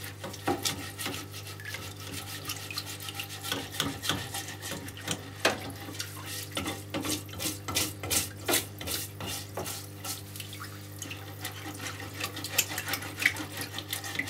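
Brush scrubbing an oily engine timing chain cover in a bench-mounted parts washer tub, with irregular scratchy strokes and small knocks of the metal part against the tub. A steady low hum from the washer's small aquarium-type pump and running degreaser fluid lie underneath.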